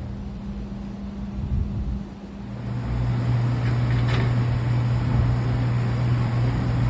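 A motor vehicle's engine running with a steady low hum that grows louder and deepens about two and a half seconds in, over a wash of wind noise.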